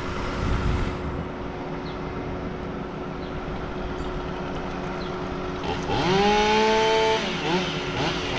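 Machinery running steadily in the background; about six seconds in, a chainsaw revs up to full throttle, holds for about a second and drops back, then blips briefly twice near the end.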